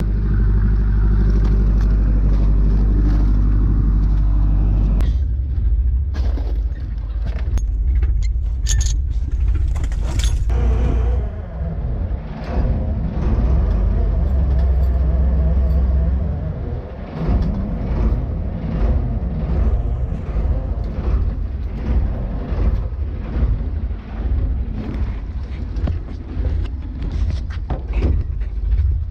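A small fishing boat's engine and winch machinery run with a steady low hum while the clam dredge is hauled up. The hum changes about five seconds in. From about twelve seconds on, repeated metallic clanking and knocking of chain and gear comes through it.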